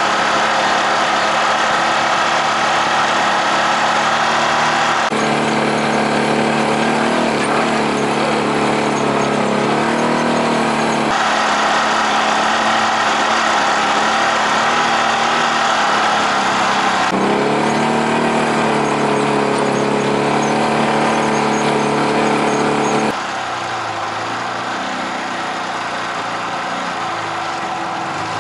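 Engine of an off-road side-by-side running under way on a dirt trail, heard from on board, its pitch rising and falling with the throttle. The sound changes abruptly every several seconds and drops in level near the end.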